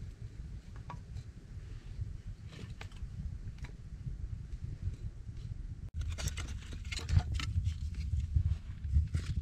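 Wood fire crackling in a clay-and-stone fireplace over a steady low rumble. From about six seconds in, the crackles and clicks get louder and denser, with knocks of firewood being handled.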